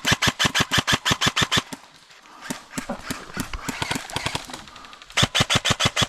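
Airsoft guns firing on full auto: a rapid burst of about ten shots a second for a second and a half, scattered shots in the middle, then another rapid burst near the end.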